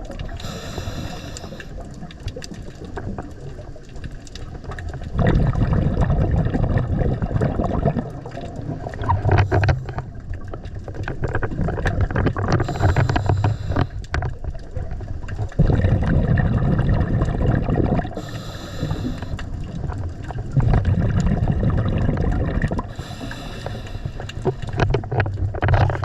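Scuba diver breathing underwater through a regulator: short hissing inhalations alternate with longer, louder bubbling exhalations, about four breath cycles.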